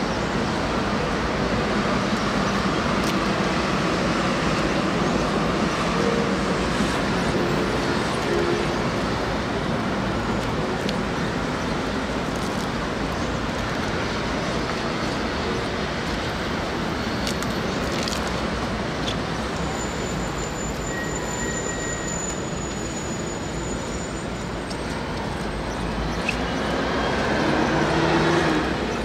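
Steady city traffic noise from cars and buses on a busy road. A thin high whistle sounds for a few seconds about two-thirds through, and one vehicle swells louder with a falling pitch near the end.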